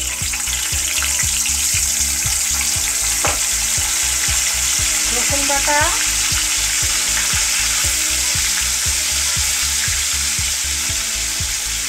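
Ginger paste sizzling in hot oil with dried red chillies in a karai, stirred as it fries: a steady, loud frying hiss.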